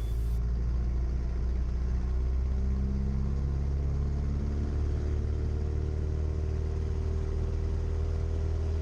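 Cessna 172 piston engine and propeller running at high power, heard through the cabin intercom as a steady low drone whose pitch edges up slightly, typical of the takeoff roll.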